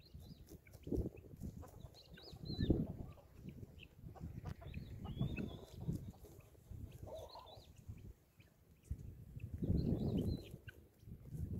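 Quiet poultry-yard sound: short, faint high chirps from birds every second or two, over bursts of low rumble.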